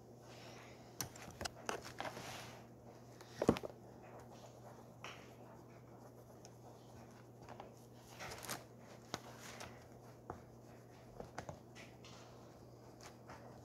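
Faint oil pastel scratching and rubbing on paper in short strokes, with scattered light knocks and clicks, the sharpest about three and a half seconds in, over a low steady hum.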